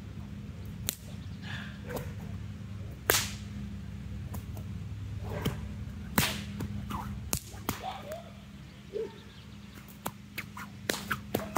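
A bullwhip being cracked in a flow routine: a series of sharp cracks at uneven intervals, the loudest about three and six seconds in, with cracks coming closer together near the end.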